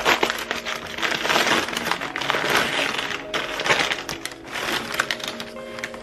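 Brown kraft-paper mailer crinkling and rustling as it is pulled open by hand, a dense crackle throughout.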